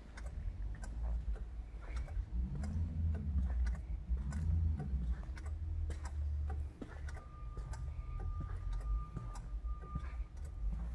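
Ticking of the Chrysler 300's turn-signal flasher as its lights blink in a Tazer light-show mode, over a low rumble. A thin steady tone joins about seven seconds in.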